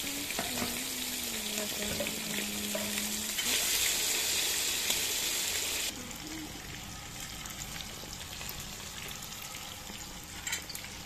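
Sliced onions sizzling in hot oil in a cast-iron kazan. The hiss is loudest in the first half, then drops abruptly to a softer, steady sizzle about six seconds in.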